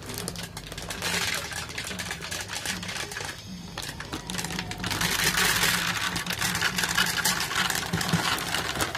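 Dry cat food kibble pouring from a bag into a plastic jar: a dense rattle of pellets hitting the plastic, heaviest a little past the middle.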